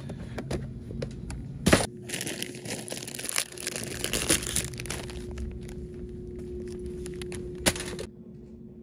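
Rustling and crinkling handling noise as boxed goods are picked up and the phone is handled, with scattered clicks and two sharp knocks, one under two seconds in and one near the end. A faint steady hum sits underneath.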